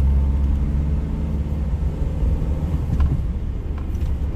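Car engine and road rumble heard from inside the cabin while driving. The steady engine hum eases off a little under two seconds in, leaving the low tyre and road rumble, with a few light clicks near the end.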